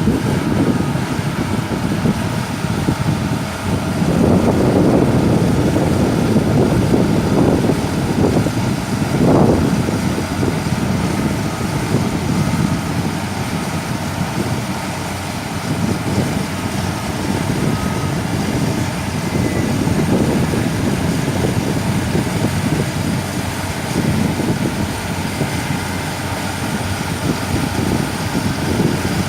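Caterpillar D6H LGP crawler bulldozer working, its diesel engine running with a continuous low rumble that swells and eases every few seconds as it takes load, with a brief louder surge about nine seconds in.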